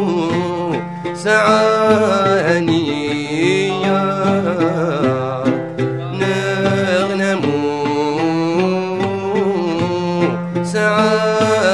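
Live Algerian chaabi music: a plucked mandole and the accompanying ensemble play a flowing melodic passage.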